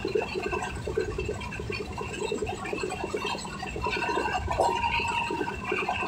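Passenger train running, heard from inside a moving coach: a steady rumble with a fast, uneven rattle of wheels on rails and coach fittings. A brief steady whine rises above it about four seconds in.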